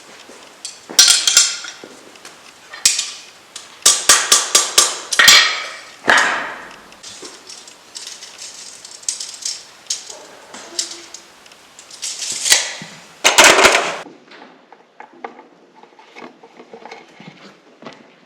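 Blacksmith's rounding hammer striking a 1/4-inch steel rod on an anvil, forging a hook: sharp ringing blows in groups, with a quick run of about six strikes around four seconds in and a pause in the middle. Fainter clinks and knocks follow in the last few seconds.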